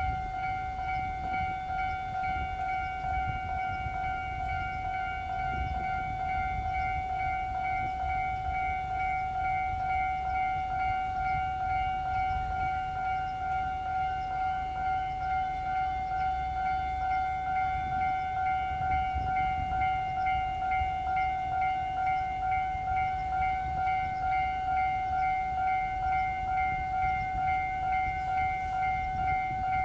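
Japanese level-crossing warning alarm ringing continuously, a steady repeating electronic tone with a slight regular pulse, over a low rumble that grows slowly louder.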